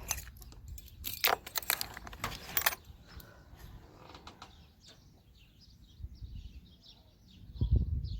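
Metallic clicking and rattling for about the first three seconds, like a latch or fittings being handled, then faint high bird chirps, with a louder low rumble near the end.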